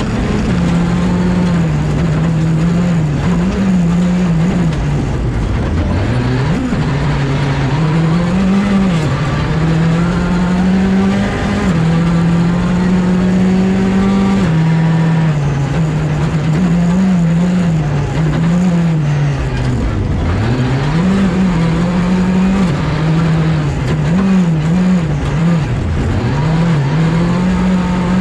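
Skoda Fabia R5 rally car's turbocharged four-cylinder engine at stage pace, heard from inside the cockpit. The revs climb and drop over and over with quick gear changes, falling sharply several times as the car brakes for corners.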